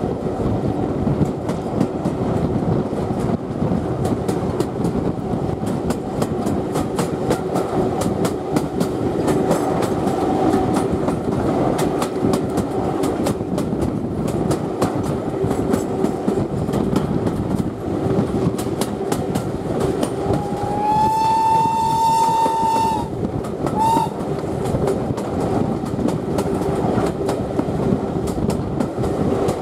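A heritage steam train heard from inside its carriage, running with a steady rumble and the wheels clicking over rail joints. About two-thirds of the way through, the locomotive, BR Standard Class 4 2-6-0 No. 76017, sounds its steam whistle: one long blast of about two and a half seconds that rises slightly at the start, then a short toot a second later.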